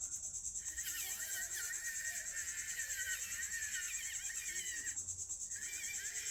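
Outdoor insects chirring steadily in a fast, even pulse, with birds chirping over it and a short break in the chirps near the start and again about five seconds in.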